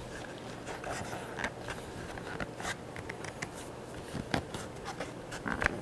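Damp leather of a Mexican loop holster being handled and pressed by hand: scattered short rubs and clicks at irregular times.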